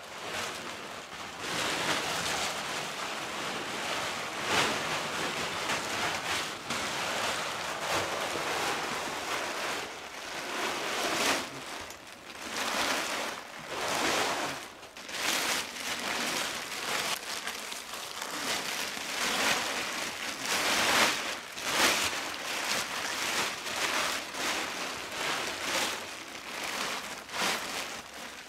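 Plastic tarp crinkling and rustling as it is handled, shaken out and lifted over a shelter's roof poles, in irregular swells of crackly noise.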